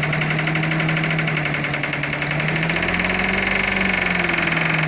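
Diesel engine of a dump truck running while its tipper bed is raised to unload sand, with a steady hum and a fast clatter. The engine pitch rises slightly about three seconds in, then settles back.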